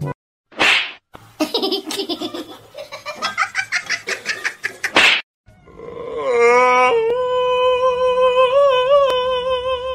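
A domestic tabby cat's long, drawn-out meow, held at one pitch for about four seconds and wavering briefly near the end.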